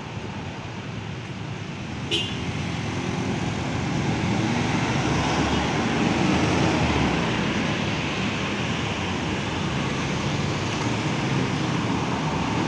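Road traffic passing close by: cars and motorcycles going past, with the noise swelling a few seconds in and staying loud as a bus starts off and comes closer. A brief high toot, like a horn, sounds about two seconds in.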